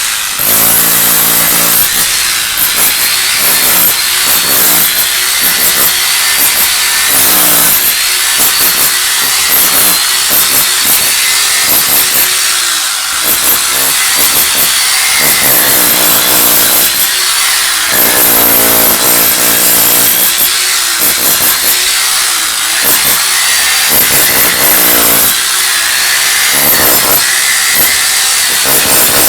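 240-volt electric chipping hammer running almost without a break, its chisel breaking up concrete and tiles, with a couple of brief pauses.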